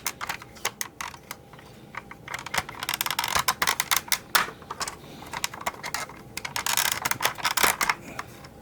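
Hard plastic toy parts clicking, snapping and scraping against each other: a Cobra Rattler's warped belly pan being pushed and worked into place on the body, with its tabs pressed in. Irregular clicks throughout, with busier bouts of rubbing and clatter about three seconds in and again around seven seconds.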